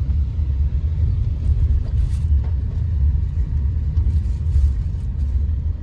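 Low, steady road rumble of a car driving, heard from inside the cabin.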